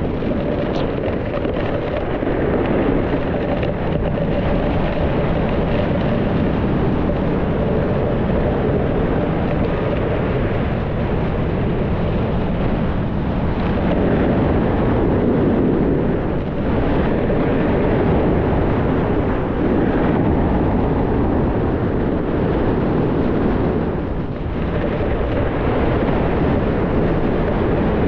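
Steady rush of wind on the microphone, mixed with the hiss of sliding over snow during a descent down a ski slope. The level dips briefly about two thirds of the way in.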